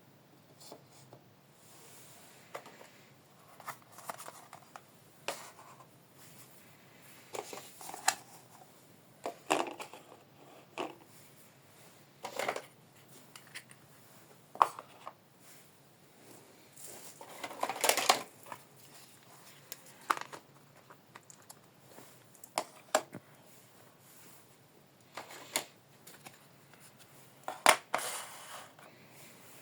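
Small plastic toy kitchen pieces being handled: irregular clicks and taps, with a few short rustling scrapes, the longest about two thirds of the way through.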